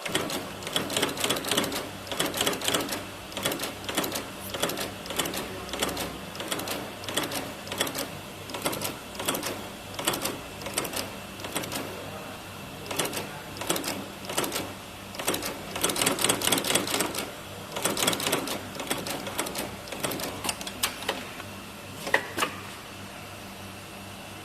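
Industrial sewing machine stitching in short runs of rapid needle strokes, stopping and starting about every second. Near the end there is a single sharp click, then only a steady hum.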